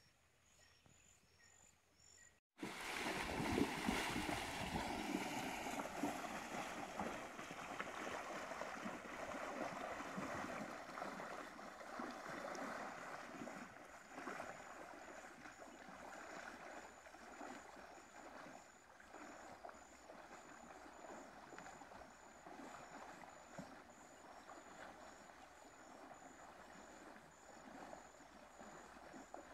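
Water sloshing and splashing as a horse carrying a rider wades through a flooded, muddy river. It starts suddenly about two and a half seconds in, is loudest at first and slowly fades as the horse moves away. Before it, only faint repeated high chirps.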